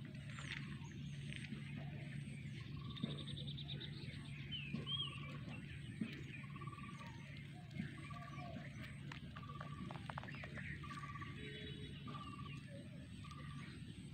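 Countryside ambience: an animal call, a short clear note repeated about once every second, over scattered bird chirps, a brief trill and a steady low hum.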